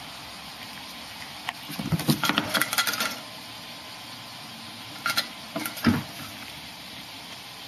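Wire pet cage rattling and clattering as a kitten climbs and claws at the bars, in two bursts of quick clicks: one about two seconds in, a shorter one about five seconds in.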